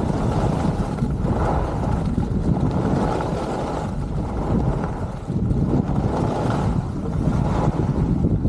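Wind rushing over a helmet-mounted camera's microphone as a skier glides down a groomed run, mixed with skis sliding on packed snow. A dense low rush that swells and eases every second or two.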